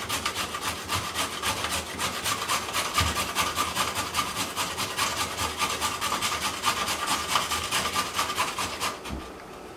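Carrots being grated on a metal box grater standing on a wooden cutting board: quick, regular rasping strokes that stop near the end.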